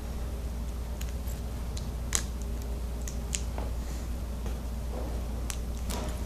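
Scattered light clicks and taps of a laptop's new replacement screen and its video cable being handled, over a steady low electrical hum.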